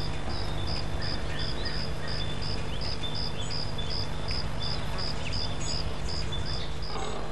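Insect chirping at an even rhythm, about three high chirps a second, with a few faint bird calls and a steady low hum underneath.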